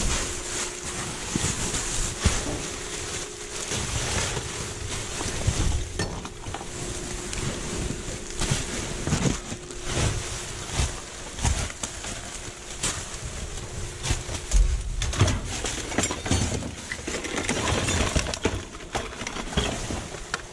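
Plastic garbage bags rustling and crinkling as they are shifted around in a dumpster, with irregular knocks and clinks of the things inside them. A faint steady hum runs underneath.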